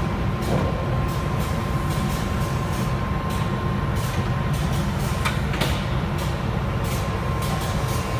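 Vertical form-fill-seal packing machine running: a steady low hum with a constant high tone, and repeated clicks about once or twice a second. A louder rasp comes about five seconds in.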